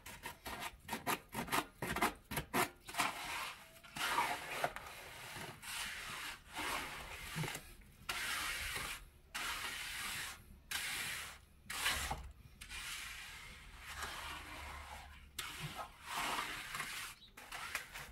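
Flat steel trowel scraping and smoothing wet cement across the floor of a basin, stroke after stroke: a quick run of short strokes at first, then longer, slower sweeps of about a second each.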